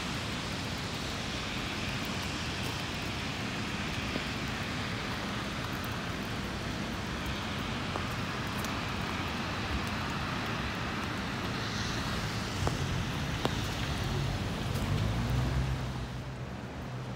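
Rain and car traffic on wet city streets: a steady hiss of rain and tyres on wet pavement, with a low rumble that swells near the end.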